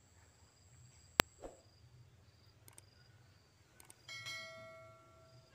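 Subscribe-button animation sound effect: a sharp mouse click about a second in, a few fainter clicks, then a bell chime from about four seconds in that rings and fades over a second and a half. Faint high insect trilling underneath.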